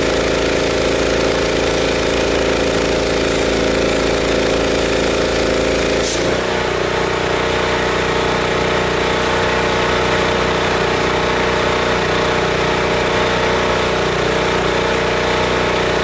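Pressure washer's gas engine running steadily. About six seconds in there is a click and the engine's tone changes, then it runs on steadily.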